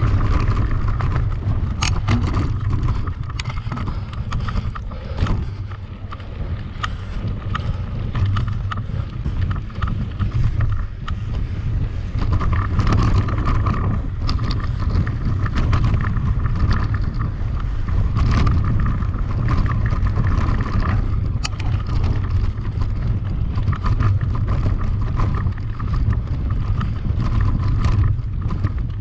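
Bicycle being ridden fast over rough ground: heavy wind buffeting on the microphone and a steady rumble, with frequent short rattles and clicks from the bike.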